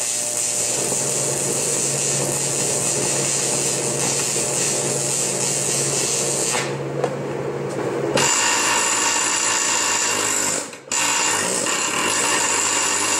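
Shielded metal arc (stick) welding on cast iron with a 3/32-inch Nickel-99 rod at 95 amps AC: the arc crackles and sizzles steadily as a short bead is laid along a crack. A low hum runs under it for the first eight seconds or so. The arc drops out for a moment just before eleven seconds in, then picks up again.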